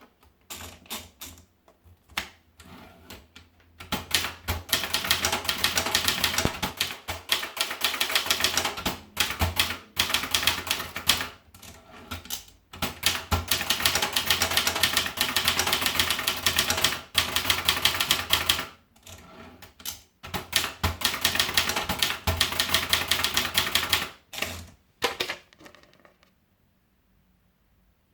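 Brillant Exclusive typewriter being typed on, its keys striking in rapid runs. A few scattered strokes come first, then three long runs of fast typing with short pauses between them, and the typing stops about two seconds before the end.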